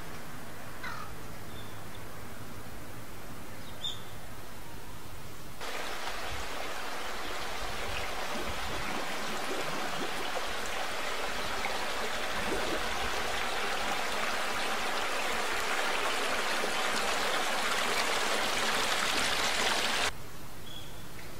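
Water running steadily through stone-lined channels and pools, an even rushing that starts suddenly about six seconds in and cuts off sharply near the end. Before and after it, a quieter outdoor background with a few short bird calls.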